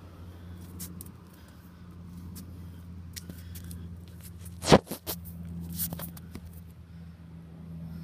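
Radio-controlled car running on concrete: a steady low hum with scattered clicks and light scraping, and one sharp knock a little past halfway, followed by a few smaller clicks.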